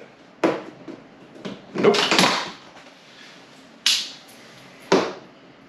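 A magnetic work light being handled and tried against a surface: a handful of separate knocks and clacks, with a longer clatter about two seconds in and a sharp clack near four seconds.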